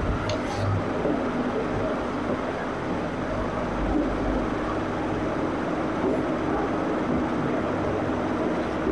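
Steady droning hum with a rushing noise from a machine running in the room, with a brief scratch of a marker on the whiteboard about half a second in.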